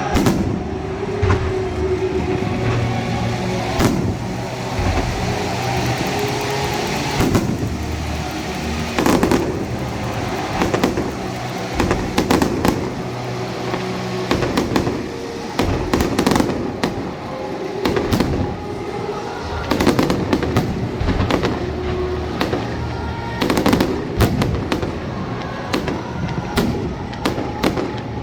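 Fireworks display: many shells bursting in quick succession, the bangs coming thickest in the second half, with music playing underneath.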